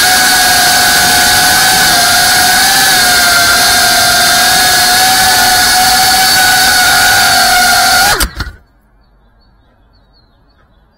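GEPRC FPV quadcopter's brushless motors and propellers whining at a nearly steady pitch, heard close up from the drone itself, then cutting off abruptly about eight seconds in as the drone lands and its motors stop.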